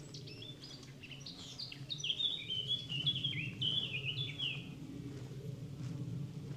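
A songbird singing a rapid run of short, high notes that step downward, lasting about four and a half seconds, over a low steady rumble.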